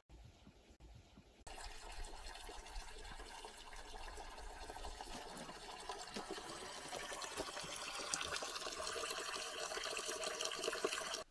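Water pouring from a bamboo spout into a stone hand-washing basin (temizuya), a steady splashing flow. It starts suddenly about a second and a half in and grows steadily louder.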